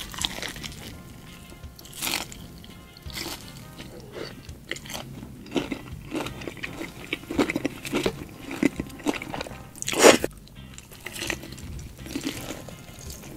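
Crispy fried-chicken coating crunching as it is bitten and chewed, a run of crisp crunches with the loudest about ten seconds in.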